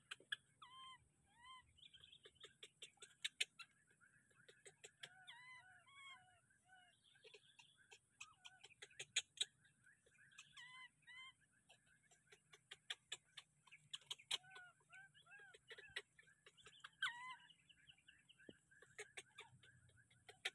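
Faint, repeated short chirping animal calls, often two to four in quick succession, over a steady high-pitched hiss, with scattered sharp clicks.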